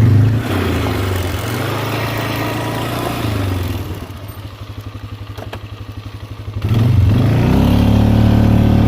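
ATV (four-wheeler) engine running, easing off to a lower, quieter note about four seconds in, then picking up speed again about seven seconds in.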